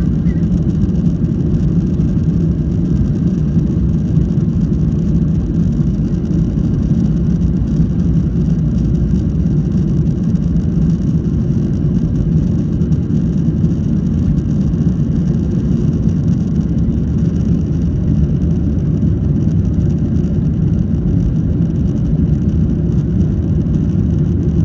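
Cabin noise of a Boeing 737-800 on its takeoff roll and lift-off: its CFM56-7B turbofan engines at takeoff thrust, heard from inside the cabin over the wing as a loud, steady, deep noise.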